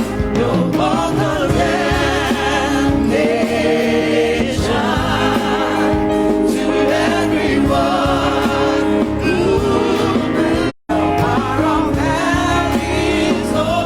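Church choir singing a gospel song, with wavering sung lines over a full accompaniment. The sound cuts out for a split second about eleven seconds in.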